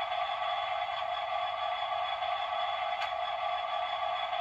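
Bachmann Class 66 model locomotive's sound decoder playing the diesel engine at idle through its small onboard speaker, a steady hum with no deep bass, while the model stands still. A single short click sounds about three seconds in.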